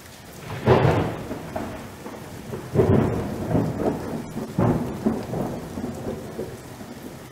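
Intro sound effect: three deep, rumbling crashes about two seconds apart, each dying away slowly over a steady rain-like hiss.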